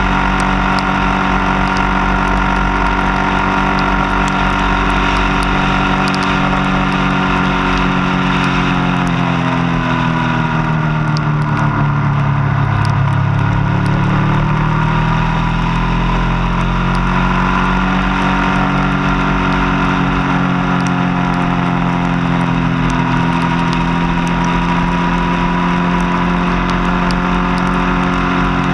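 Motorcycle engine running at road speed under a rush of wind noise. Its pitch sinks about ten to thirteen seconds in as the bike slows, then climbs again as it picks up speed.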